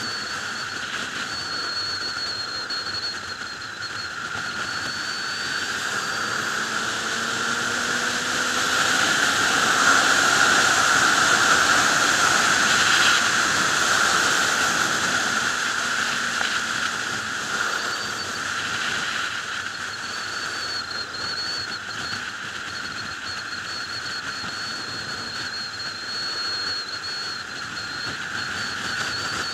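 Wind rushing over the microphone of a sport bike's on-board camera at road speed, with a thin high whistle and the engine faint underneath. The wind grows louder around the middle as the bike speeds up, then eases back.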